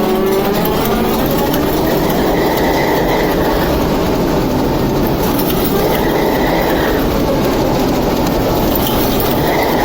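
The TEP70 locomotive's V-16 diesel engine running loudly and steadily during its first start after repair.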